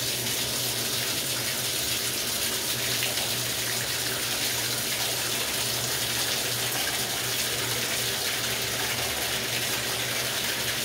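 Bathtub faucet running steadily, water pouring into the tub onto a closed trip-lever drain stopper. This tests that the freshly adjusted stopper blocks the drain.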